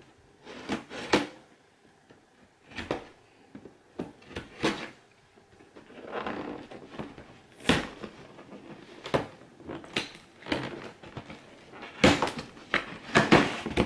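Cardboard toy box being opened by hand: an irregular string of scrapes, knocks and rustles of cardboard, with a denser cluster near the end.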